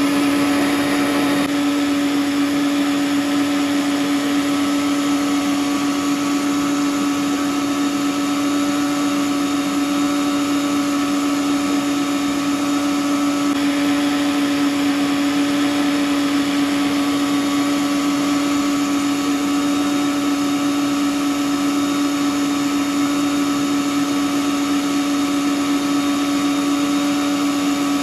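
Electric stand mixer running steadily, its whisk beating eggs and sugar into a foam; an even motor hum that holds one pitch throughout.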